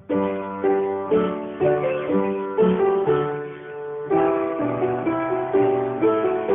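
Instrumental music starts abruptly: a slow melody in chords, each note struck sharply and then dying away, about two notes a second.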